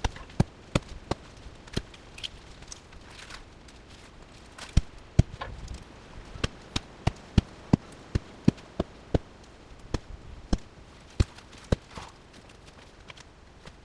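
A series of sharp knocks, irregular at first, then a steady run of about three a second in the middle, thinning out again toward the end.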